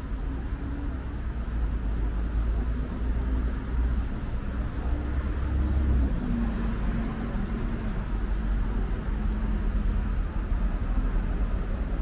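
Steady city road traffic on a multi-lane road: cars and buses running past, a low rumble with an engine's hum over it, loudest about six seconds in.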